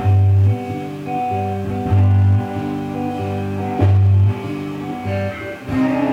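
Background music led by guitar, with a deep note swelling about every two seconds.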